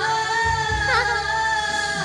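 Music with singing: long held notes over a bass line, with a brief wavering note about a second in.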